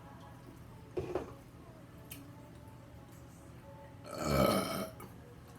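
A woman's long, loud burp about four seconds in, lasting just under a second. It is preceded about a second in by a short, sharp mouth sound.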